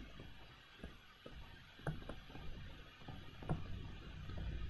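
Faint taps and scratches of a stylus writing on a tablet screen: a few short, scattered ticks over a low steady hum.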